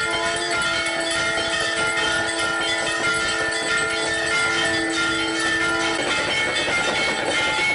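Temple bells clanging continuously during an aarti, over several long, steady horn-like blasts of conch shells that stop about six seconds in.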